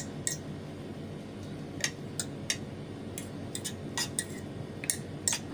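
Metal fork clinking and scraping against a ceramic plate while mixing noodles: light, irregular clicks, about a dozen scattered through.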